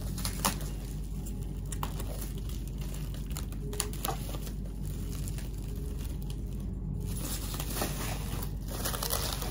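Plastic bubble wrap crinkling and rustling as it is handled and pulled off a cardboard box, with irregular crackles, one sharper near the start.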